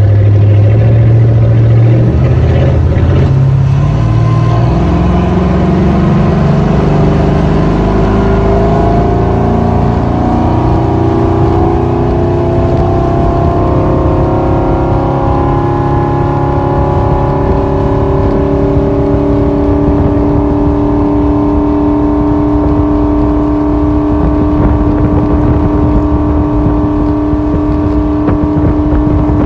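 Motorboat engine speeding up under way: its pitch climbs steadily for about fifteen seconds, then holds at one steady note.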